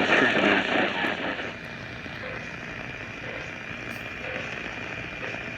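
Shortwave radio static from a Tecsun PL-880 receiver tuned between 4 and 5 MHz: a loud rough, crackling noise for the first second and a half, then dropping to a steadier hiss with a thin, steady high whistle and faint, evenly spaced low blips.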